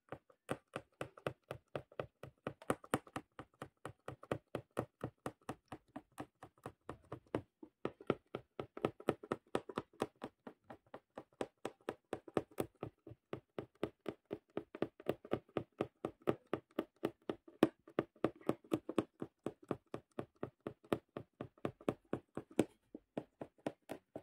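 Punch needle stabbing in and out of fabric stretched tight in a wooden embroidery hoop, a steady run of taps about three to four a second as the green fill stitch is worked.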